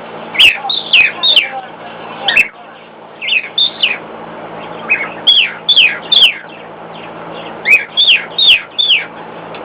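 Cockatiel whistling loudly: a string of short downward-sliding whistle notes, mostly in quick twos and threes with short pauses between, sung along to a running hairdryer.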